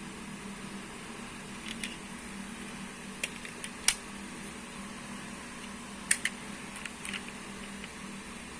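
Scattered light clicks and taps over a steady low hum: a few sharp ticks about two, three to four, and six to seven seconds in, the loudest near four seconds.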